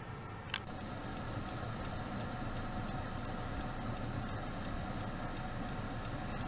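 Steady low rumble of a moving car's cabin, with an even, regular ticking of about three ticks a second that starts about a second in. A single sharp click comes just before the ticking begins.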